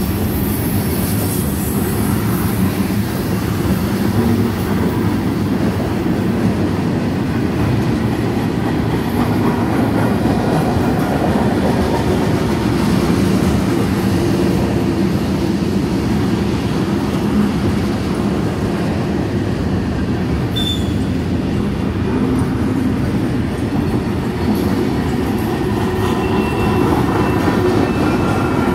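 Freight train of covered hoppers and boxcars rolling past: a steady rumble and clatter of steel wheels on the rails.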